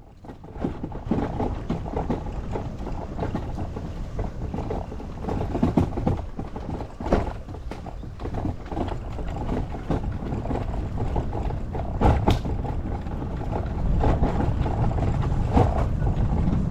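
Honda Super Cub's single-cylinder four-stroke engine running under way on a rough forest track, mixed with a steady rush of noise and occasional sharp knocks.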